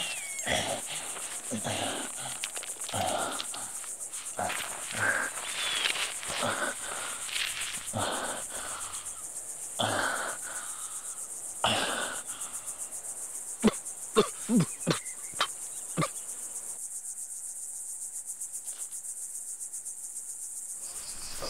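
A steady high drone of insects, with a man's heavy breathing, about one breath a second, and a few short groans over it. The breathing stops about 17 seconds in, leaving only the insects.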